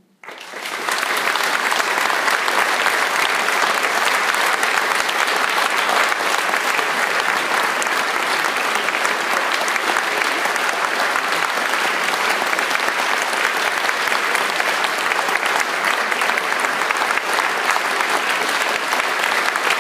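Audience applauding, breaking out suddenly just after the start and then holding steady and dense.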